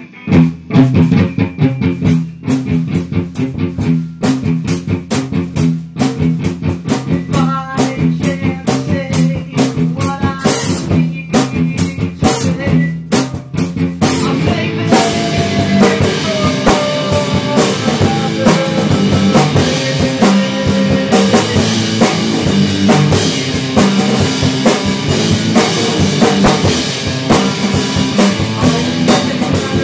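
Amateur rock band playing a song demo: a drum kit keeping a steady beat under guitar. About halfway through, the playing becomes fuller and denser.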